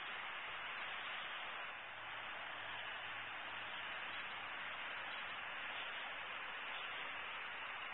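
Steady, even hiss of background noise from the nest camera's outdoor microphone, with no distinct bird calls.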